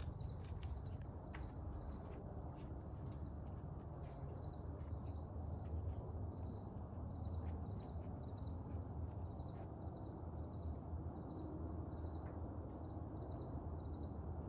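Outdoor night-time ambience of insects: a steady high-pitched trill and a regular pulsing chirp, over a low background rumble.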